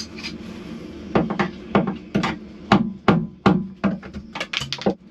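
Hammer blows, about a dozen quick strikes starting about a second in, knocking at the windlass mounting bolts that are being cut free.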